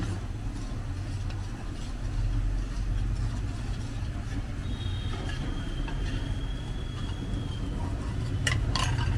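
A steady low rumble, with a metal spoon ticking as it stirs tapioca-starch slurry in a bowl. Near the end come a few sharp clicks as the bowl is tipped and the slurry is poured into a wok of tomato sauce.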